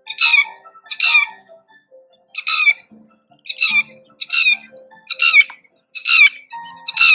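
Red-wattled lapwing giving loud, shrill alarm calls in flight, a short burst of sharp notes about once a second, eight times. These are alarm calls at intruders near its eggs on the ground.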